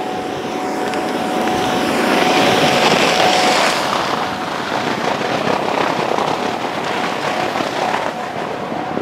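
Electric inflatable-booth blower running with a steady hum, as air rushes out through the unzipped side of the inflatable paint booth; the rush of air swells a couple of seconds in and then eases.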